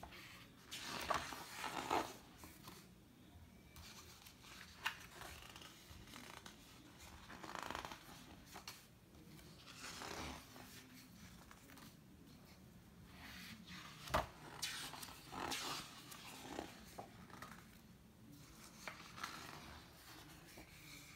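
Paper pages of a large illustrated book being turned by hand: a series of separate swishing, rustling page turns every few seconds, with one sharp tap about two-thirds of the way through.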